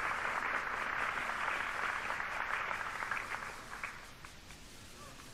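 Audience applause, an even patter that dies away over about four seconds.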